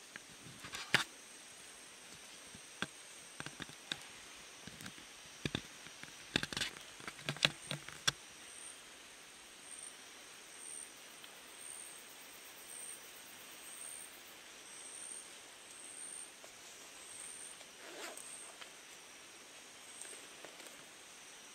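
Clicks, knocks and rustles from handling the camera for the first eight seconds. After that, a high-pitched insect chirps about once a second over a steady high insect drone.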